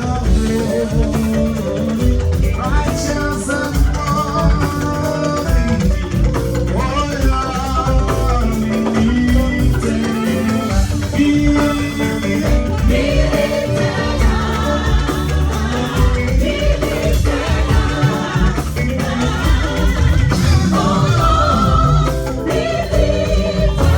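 Band music with singing over a steady drum beat.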